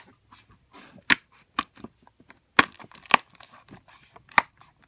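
Thumb pressing on the perforated cardboard door of an advent calendar, the card crackling and tearing in a string of sharp clicks, about five loud ones, as the stiff door refuses to push in easily.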